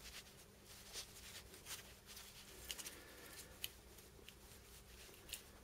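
Near silence with scattered faint clicks and rustles: fingers handling the small metal fire-button assembly of a battery mod, held together with tape.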